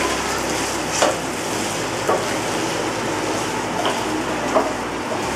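Cubed potatoes sizzling as they fry in hot oil in a nonstick frying pan, stirred with a spatula that clicks against the pan a few times.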